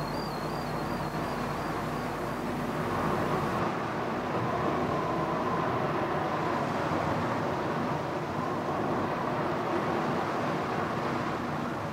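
Steady outdoor ambient noise, a continuous even rumble and hiss with no clear single source. A faint warbling high tone fades away over the first couple of seconds.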